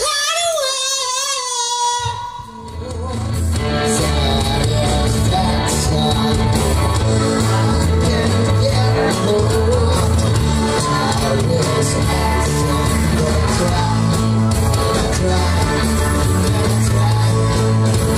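Live rock band with electric guitars, bass, keyboard and drums, and a male singer on a microphone. A held, wavering high note trails off, and about two and a half seconds in the full band comes in and keeps playing loudly.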